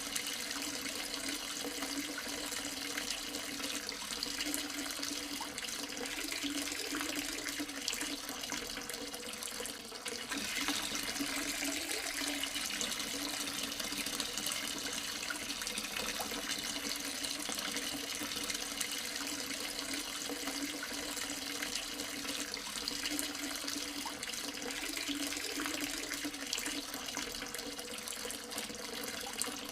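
Water running steadily, with a faint low hum underneath; it dips briefly about ten seconds in.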